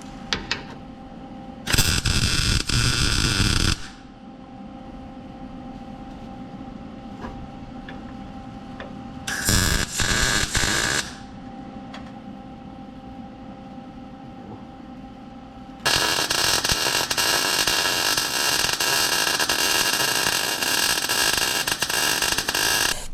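Electric welder laying beads on a truck frame bracket: three runs of steady crackling arc noise, about two seconds, a second and a half, then a longer seven-second run, with a steady low hum between them.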